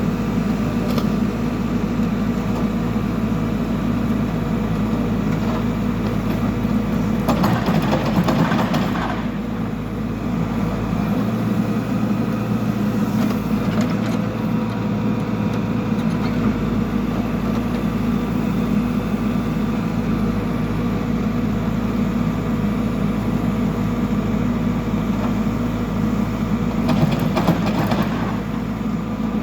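Backhoe loader's diesel engine running steadily, with two stretches of louder rushing noise as it works, once about seven seconds in and again near the end.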